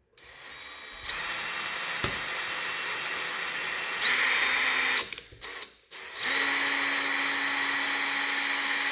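Power drill turning a thread tap to cut threads in the wheel-mount holes. It runs steadily, speeds up about four seconds in and stops, then runs again for about three seconds, in the way a tap is driven in and then backed out.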